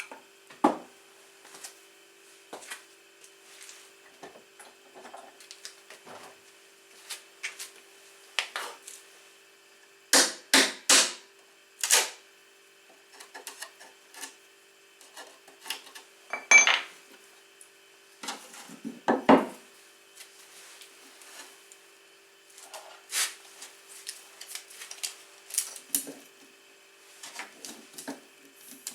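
Scattered knocks, clicks and clatter of tools and metal and wood parts being handled on a workbench. A group of four sharp knocks comes about ten to twelve seconds in, and one loud clank with a short metallic ring comes past the middle.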